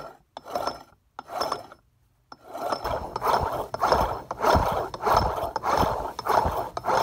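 The rotors of an Eaton M90 supercharger being turned back and forth by hand, giving a rasping, ratchet-like gear rattle in uneven strokes. It is a check for rotor play and metal rubbing after the needle bearings were pressed in to just behind flush, and some play remains.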